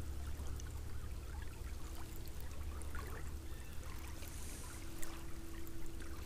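A small trout creek running, heard as a steady soft rush of water over its rippled surface, with a low rumble underneath that eases off about five seconds in.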